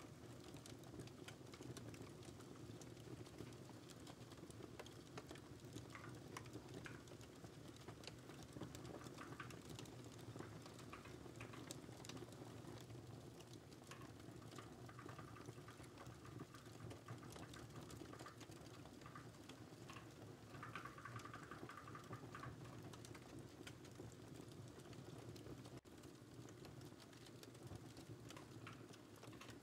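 Faint, irregular computer keyboard typing over the steady hiss and scattered pops of a crackling fireplace.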